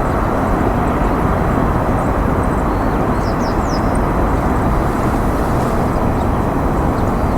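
Steady outdoor rumble that stays loud throughout, with a few faint, high, short bird chirps about three seconds in.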